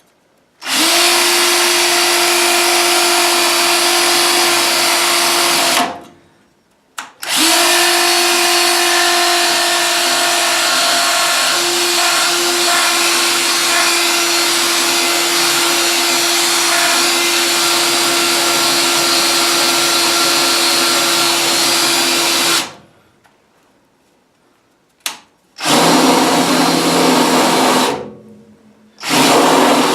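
Power drill turning a Unibit step bit through the furnace's sheet-metal cabinet: a steady motor whine in two long runs of about five and fifteen seconds, then two short bursts near the end.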